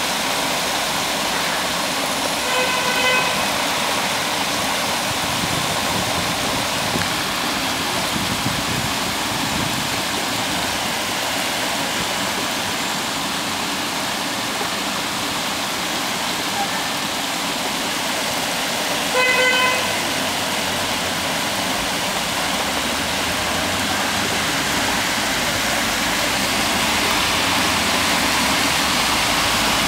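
Storm floodwater rushing and churning along a street and over the pavement, a steady loud rush. A vehicle horn toots briefly twice, a few seconds in and again past the middle.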